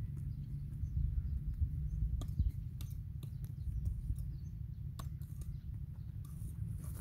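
Field ambience: a steady low rumble, with faint scattered small-bird chirps and a few light clicks.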